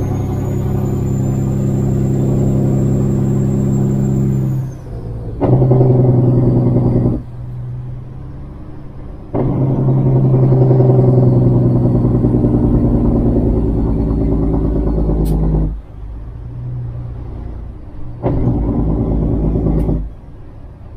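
Kenworth W900 semi truck's diesel engine pulling hard in four stretches, easing off in short dips between them, as when shifting up through the gears under a heavy load. A high whistle rides over the engine for the first few seconds and falls away as the first pull ends.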